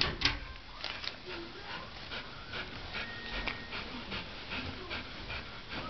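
Dog panting in a steady rhythm, about two to three breaths a second, with two sharp clicks right at the start.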